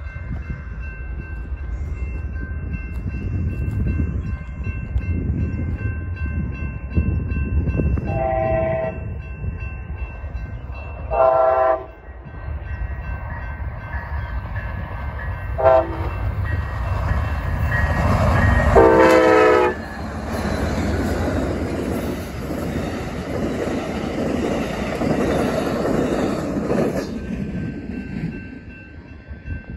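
Horn of an Amtrak Siemens ALC-42 locomotive sounding the grade-crossing signal, two long blasts, a short one and a long one, the last the loudest, over the steady ringing of the crossing bells. The train then passes with a rumble of wheels on rail and a high hiss, fading near the end.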